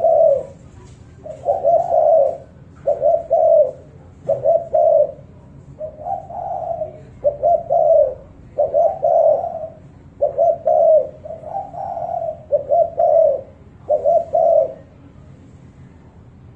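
Spotted dove cooing: about ten low coo phrases in a steady series, roughly one every second and a half, stopping about two seconds before the end.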